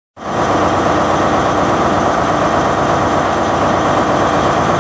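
A loud, steady engine noise that starts abruptly.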